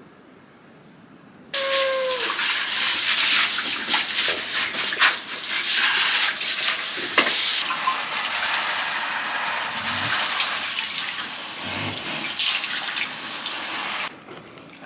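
Hand-held hair dryer blowing steadily while drying a Shiba Inu's coat, switched on about a second and a half in and switched off suddenly shortly before the end.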